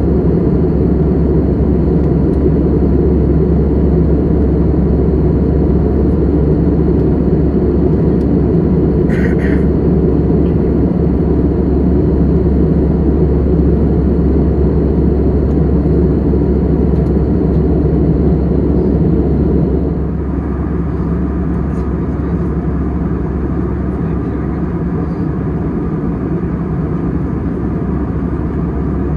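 Steady roar of an Airbus A320 cabin in cruise flight, engine and airflow noise heard from a window seat, with a brief higher sound about nine seconds in. About twenty seconds in the noise drops slightly and abruptly.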